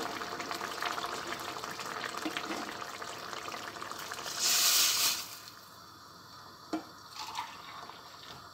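Tomato and pepper paste sauce sizzling in a stainless steel pan, then boiled water poured in from a mug about four seconds in, hissing loudly for about a second as it hits the hot pan; after that the pan is much quieter, with a light knock near the end.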